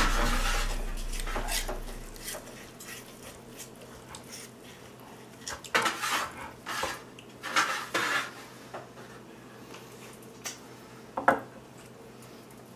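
Background music fading out over the first two seconds, then a chef's knife carving a roast prime rib on a wooden cutting board: a few short scraping strokes and clicks of the blade against the board, grouped in the middle, with one sharper click near the end.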